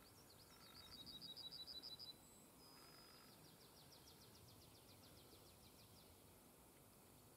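Small songbirds singing over a faint hiss: a run of about ten quick repeated high notes that stops abruptly about two seconds in, then a brief thin high note and a short whistle, followed by a long, quieter trill of rapid downward-slurred notes that ends about six seconds in.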